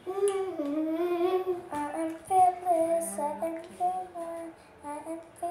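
A young girl singing a tune without clear words, holding notes and stepping from one to the next with short breaks.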